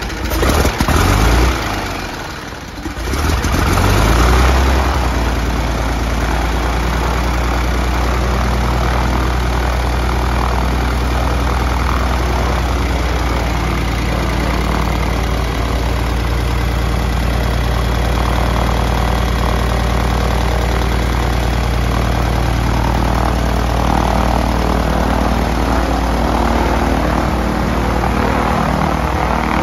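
Continental IO-520-BB six-cylinder aircraft engine in a 1949 Ryan Navion on its first start after installation: it turns over and fires unevenly for the first few seconds, catches about four seconds in with a brief surge, then settles into a steady idle with the propeller turning.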